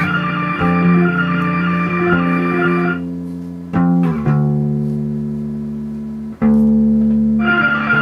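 Guitar played through a Montreal Assembly Goodbye 24 digital effects pedal, giving layered, held and repeated notes. About four seconds in the pitch glides down. Near six and a half seconds a louder held chord cuts in suddenly, and busier playing comes back near the end.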